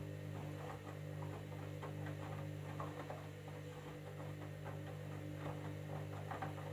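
Candy washing machine running a jeans cycle: a steady motor hum with frequent, irregular light clicks and taps over it.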